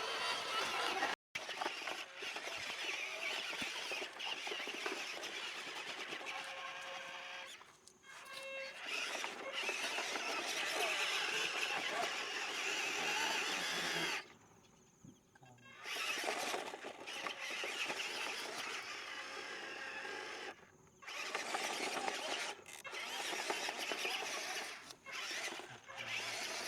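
Small electric motors and gearboxes of radio-controlled construction models whirring as they work, with a few sudden breaks where the sound cuts off.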